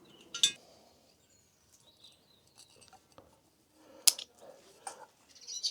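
A few sharp clicks and light taps of small metal heater parts and tools being handled, with stretches of quiet between: the loudest click less than half a second in and another about four seconds in.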